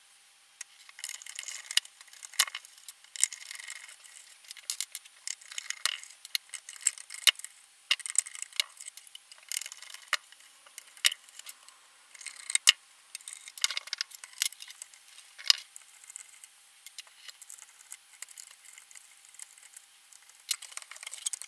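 Irregular small metal clicks, taps and scrapes of hands working on an old vacuum tube amplifier chassis: tubes being pulled from their sockets and screws taken out with a screwdriver.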